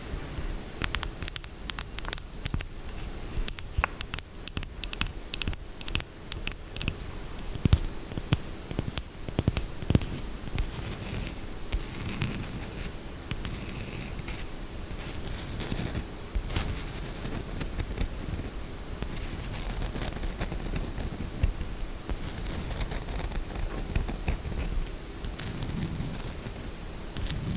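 Close-miked scratching and tapping on a bar of soap. There is a run of quick, sharp clicks in the first ten seconds, then softer, steadier scratching.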